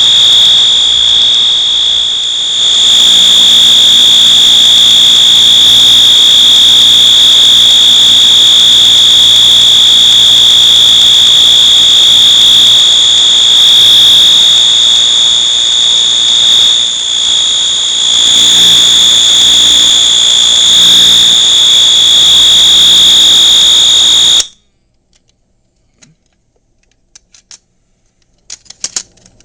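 Wheelock MT multitone fire alarm horn sounding on its continuous horn setting during an alarm test: a loud, steady, high-pitched tone. It cuts off suddenly a few seconds before the end, and a few faint clicks follow.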